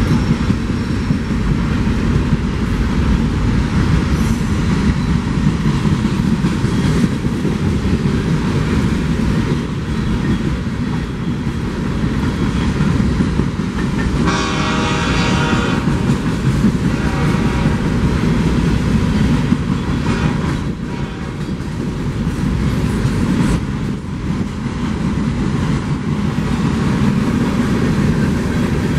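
Freight train rolling past close by: a steady rumble and clatter of wheels on rail. About fourteen seconds in, a train horn sounds once for about two seconds.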